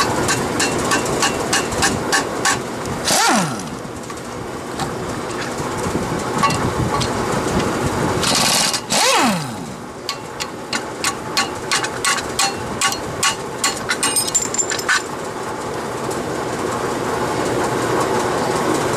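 Repeated rubber-mallet blows on the engine's teardown parts, in runs of about three or four strikes a second. Twice, about 3 s and 9 s in, an impact wrench gives a short burst, and its whine falls away after each one.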